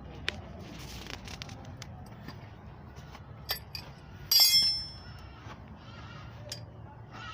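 Scattered light clicks, then a loud metallic clink with a short high ringing about four seconds in, over a low steady hum.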